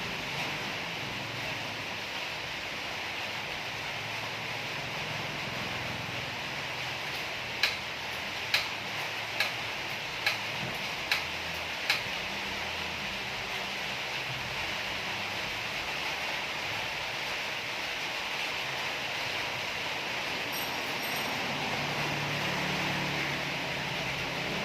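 Six sharp knocks, evenly spaced a little under a second apart, about a third of the way in, over a steady background hiss.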